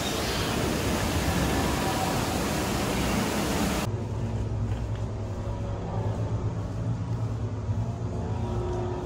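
Steady rushing noise that cuts off abruptly about four seconds in, giving way to a low steady hum with faint steady tones above it.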